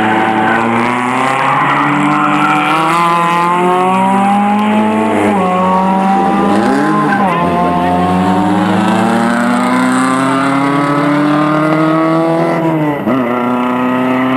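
Peugeot 205 race cars' engines revving hard at speed, more than one car on track at once. The pitch keeps climbing, then drops sharply twice, about six seconds in and again near the end, as a car lifts off and climbs again.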